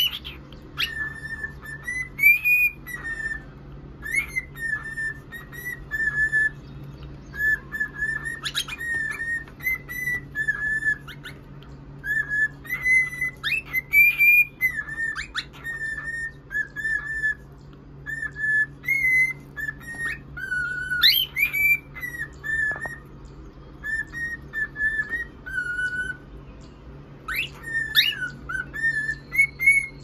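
Cockatiel whistling a tune of short, repeated notes in phrases, with a few sharp chirps now and then.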